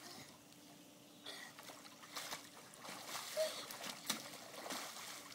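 Light, irregular water splashing and sloshing from children swimming in a pool, starting about a second in, over a faint steady hum.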